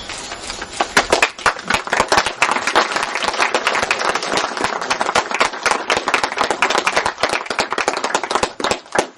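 A crowd clapping: many irregular hand claps starting about a second in and dying away near the end.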